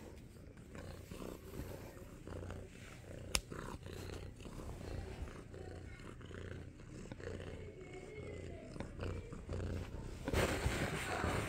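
Domestic cat purring close up, very loud, a low rumble in pulses about a second long. A sharp click comes about three and a half seconds in, and there is a louder stretch of noise near the end.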